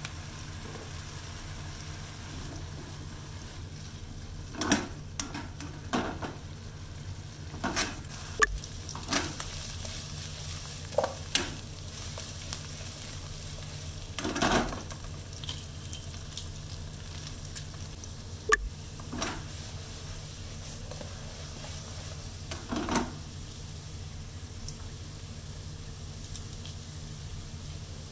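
Potato wedges frying in oil in a nonstick frying pan, with a steady sizzle. Now and then tongs knock and scrape against the pan as the pieces are moved.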